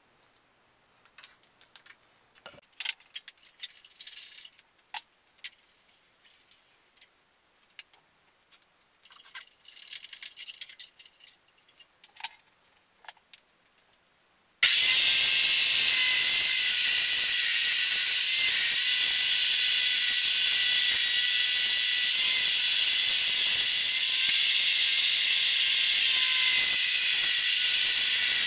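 Scattered knocks and clicks of wood being handled, then about halfway through a benchtop table saw starts abruptly and runs steadily with no load, a loud high whine and hiss.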